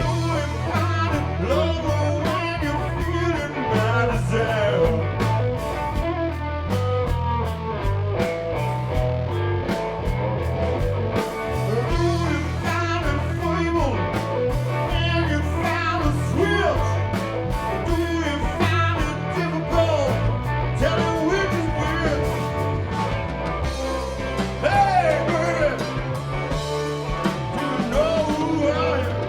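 Blues-rock band playing live with no vocals: electric guitar with bending notes over a steady bass line and drums.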